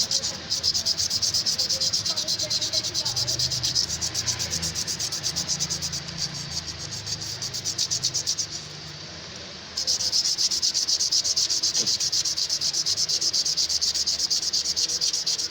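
Fast, rhythmic rasping strokes of abrasive hand work on a steel scissor blade, about five strokes a second, pausing for about a second midway and then resuming.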